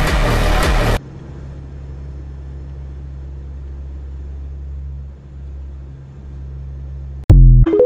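Loud rushing noise for about a second that cuts off abruptly, then the steady low drone of a vehicle running, ended near the end by a sudden loud burst.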